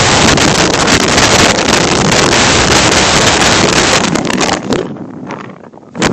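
Storm-force wind gusts buffeting the microphone of a Ring doorbell camera, a loud, rough rush of noise. It eases off over the last couple of seconds into a brief lull, then a new gust hits suddenly at the very end.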